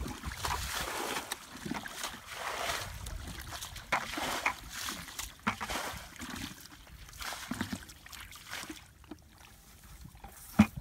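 Muddy water being bailed with a plastic bucket and thrown out onto the grass and mud, splashing and sloshing in several bursts, with a sharp knock near the end.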